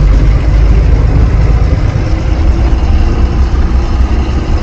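Loaded diesel truck being driven, heard from inside the cab: a steady, loud low engine rumble with road noise.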